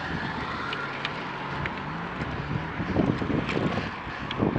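Wind rushing over the microphone of a camera riding along with a group of road cyclists, over a steady bed of tyre and road noise, with a faint low hum in the first half and a few light clicks.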